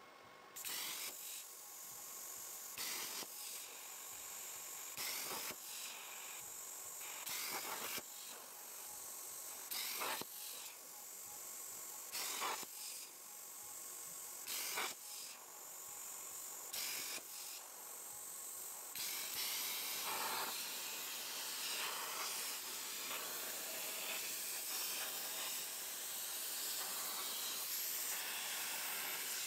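CNC plasma cutter: a steady hiss with a short louder rush about every two and a half seconds, then about two-thirds of the way through the plasma arc cuts into steel plate, a louder, fuller, steady hiss.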